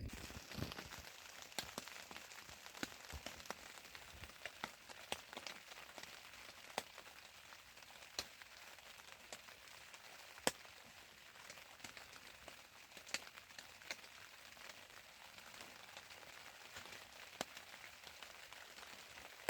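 Campfire crackling faintly: a soft hiss with irregular sharp pops and snaps, the loudest pop about ten seconds in.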